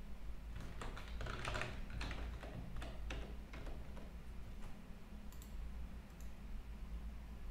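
Computer keyboard typing: a quick run of keystrokes in the first few seconds, then a couple of isolated clicks, over a low steady hum.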